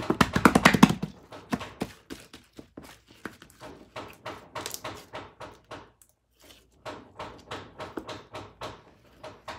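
Hand-played slime being patted and squeezed: a fast run of sticky clicks and pops in the first second, then irregular crackling clicks as it is balled up and kneaded.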